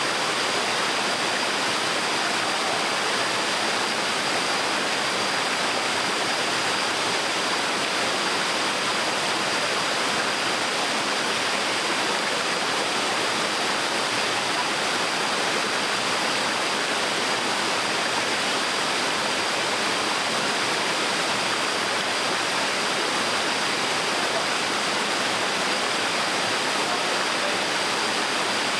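Small waterfall on a stream: water rushing and splashing steadily.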